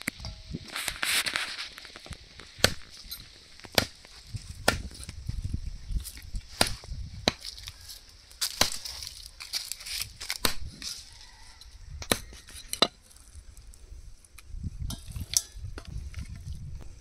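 Irregular sharp chopping strikes, a knife or cleaver cutting up rabbit meat on a board, with a low rumble between the strikes.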